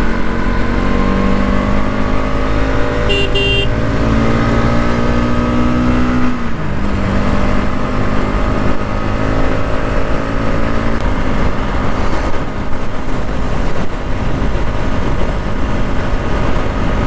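Bajaj Pulsar NS200's single-cylinder engine under hard acceleration on a moving bike, rising in pitch for about six seconds, then dropping sharply and running on steadily with a low rush underneath. Two short beeps sound about three seconds in.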